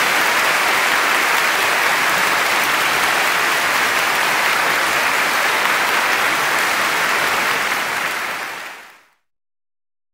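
Audience applauding steadily, a dense even clatter of many hands, which fades out near the end.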